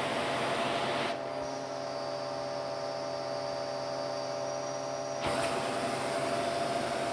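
Bissell PowerLifter upright vacuum cleaner running with a steady motor hum under a rush of air. About a second in, the airy rush cuts out abruptly, leaving a plainer hum, and comes back just as suddenly about five seconds in.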